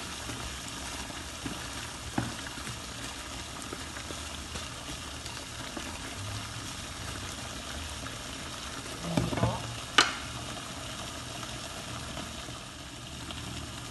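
Chicken curry with potatoes simmering steadily in a pan, with a wooden spatula stirring and scraping through it. About ten seconds in, a single sharp clink as a glass lid is set on the pan.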